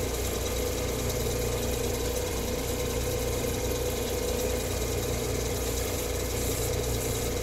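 Wet cabochon grinding machine running steadily, its motor giving a constant hum with a steady mid-pitched tone, while a piece of snowflake obsidian is worked against its grinding wheel.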